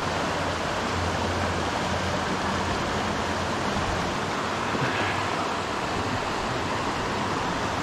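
Steady rush of a fast-flowing river running over rocks.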